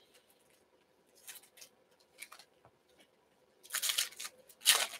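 Trading-card pack wrapper crinkling and cards being handled, in short scratchy bursts: faint at first, then two louder bursts near the end.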